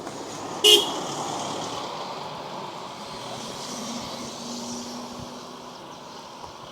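A motor vehicle passing on the road, its noise swelling and then fading slowly over several seconds, with a short, loud beep about a second in.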